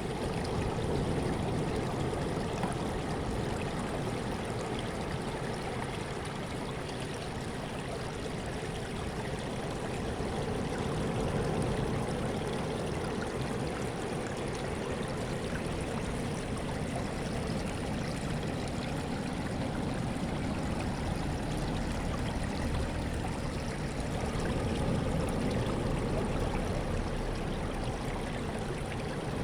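Sea waves washing: a steady rush of water that swells and eases slowly, growing louder about a second in, around twelve seconds in and again near the end.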